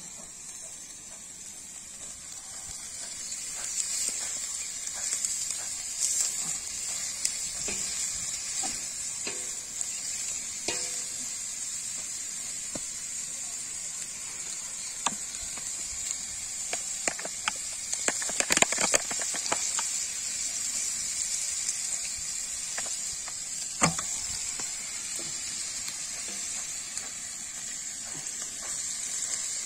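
Food sizzling as it fries in oil in a pan, a steady high hiss, while it is stirred. A cluster of utensil scrapes and knocks against the pan comes about two-thirds of the way through, and one more knock follows a few seconds later.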